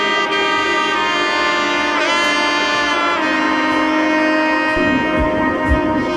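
Background music: a lead melody of long held notes over accompaniment, with a low beat of about two thumps a second coming in near the end.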